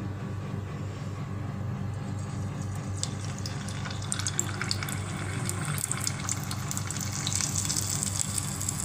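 Batter-dipped shrimp deep-frying in hot oil: sizzling and crackling that starts about three seconds in and grows busier, over a low steady hum.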